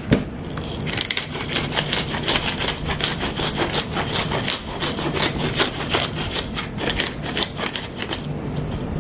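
Hand-held pepper mill grinding peppercorns: a steady run of rapid, gritty clicks and crunches that starts about half a second in.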